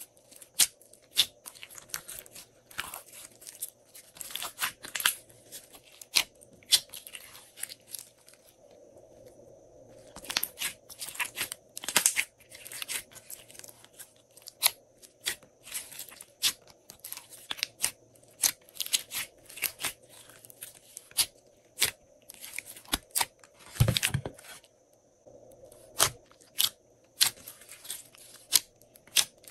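Glossy slime being squished, folded and stretched by hand, giving a dense, irregular run of sticky clicks and pops. There is a heavier thud about three-quarters of the way through.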